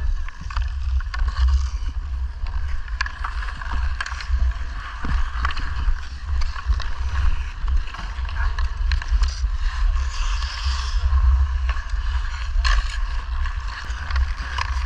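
Hockey skates carving and scraping on outdoor ice, over a low wind rumble on the microphone, with a few sharp taps of stick and puck.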